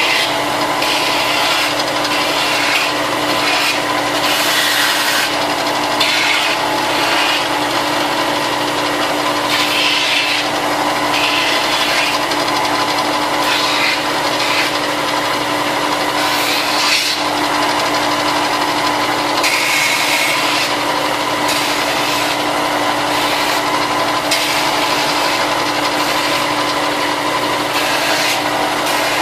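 Plastic armor parts being sanded, with repeated rasping strokes of abrasive against the plastic edges at an uneven rhythm of about one every second or two, over a faint steady hum.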